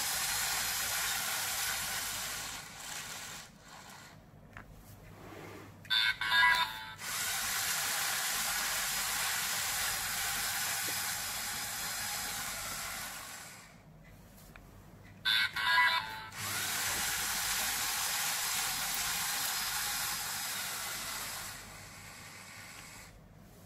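LEGO Mindstorms EV3 slot machine running through spins: a steady hiss-like whir that lasts several seconds at a time, broken twice by a short, loud burst of electronic beeping tones.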